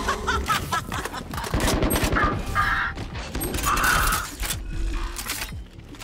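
Valorant first-person shooter game audio: rapid gunfire and in-game effect sounds, dying down near the end.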